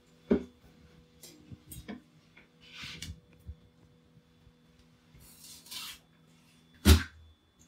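A giant cleaver-like knife working on a small tuna on a wooden cutting board: a few light knocks and two short scraping rasps, then one loud chop with a heavy thud about seven seconds in as the blade comes down through the fish onto the board.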